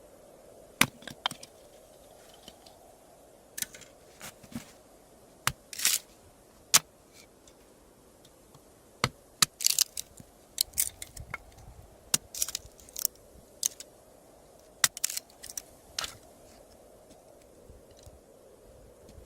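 Irregular sharp clicks and light knocks, sometimes a few close together, with quiet gaps between them, busiest in the middle stretch.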